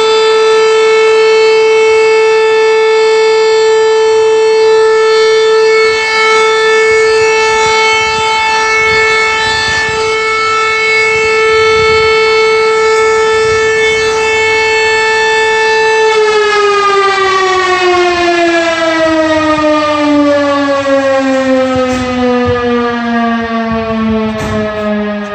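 Volunteer fire station's alarm siren calling out the crew, holding one steady tone, then about sixteen seconds in starting to wind down in a slow, falling pitch.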